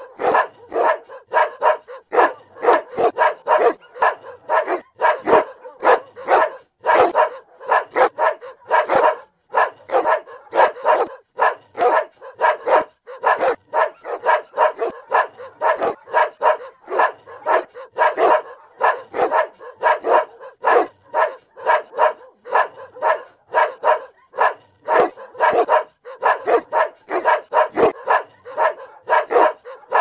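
A Boerboel barking over and over without let-up, in short barks coming about two to three a second.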